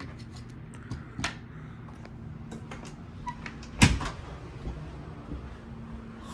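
A few sharp knocks and clicks, the loudest a single thump near four seconds in, over a steady low hum.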